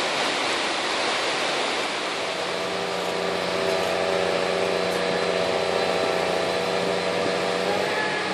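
A steady rushing noise, joined about two seconds in by the steady hum of a crane's engine running, its pitch rising slightly near the end.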